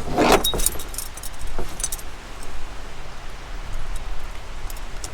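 Metal lock clinking and jangling as it is threaded through a kayak cart's wheel and fastened, with a quick run of clicks in the first two seconds, one ringing briefly, then a few scattered clicks. A steady low rumble lies underneath.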